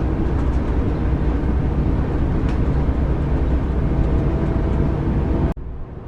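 Steady low engine and road rumble heard from inside a bus cruising at speed. About five and a half seconds in the sound drops abruptly to a quieter, duller rumble.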